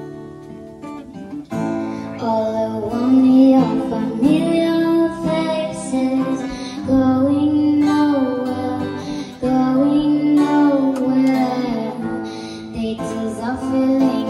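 Two acoustic guitars strummed as an accompaniment while a girl sings into a microphone, her voice coming in about a second and a half in.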